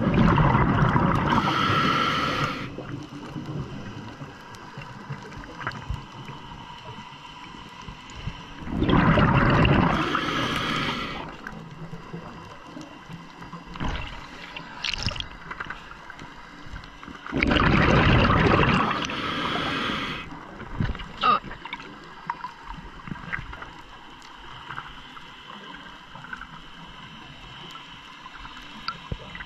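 Scuba regulator exhaust bubbles heard underwater: three long rushing, gurgling bursts of exhaled air about nine seconds apart, with faint clicks and crackles in the quieter stretches between breaths.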